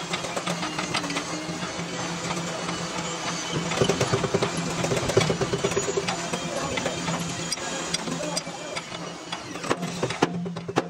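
A small machine running with a steady hum and dense, rapid ticking and clicking, busiest around the middle.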